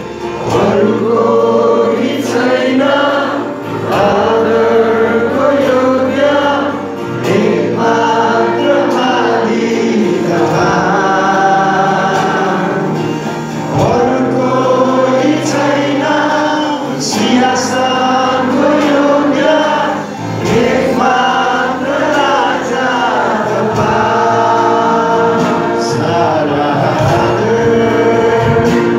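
A group of voices singing a Nepali Christian bhajan with instrumental accompaniment and a steady beat.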